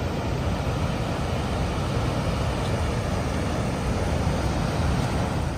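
Water rushing down the stepped stone spillway of New Croton Dam: a loud, steady rush with a strong low rumble.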